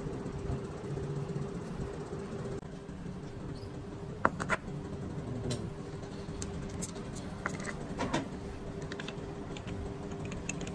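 Steady machine hum with one held tone, and scattered sharp metallic clicks and taps, two of them loud, from the milling machine setup where the Teflon gear blank sits in a chuck under the cutter.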